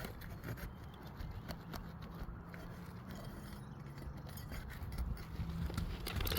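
Scattered scrapes and light taps as asphalt roof shingles are worked loose: seals broken and shingles lifted to get at the nails, with a low steady hum beneath.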